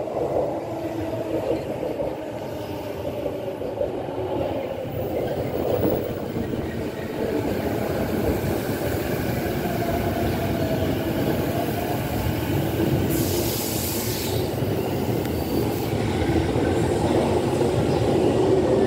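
JR East E233-series electric train pulling in along the platform, with a rumbling run and a pitched whine from its motors and wheels. A brief hiss comes about 13 seconds in.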